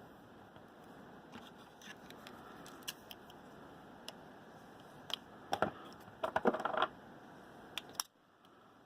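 Electrical tape being handled and pulled off its roll: small scattered clicks, then a short crackly burst of tape unrolling in the second half.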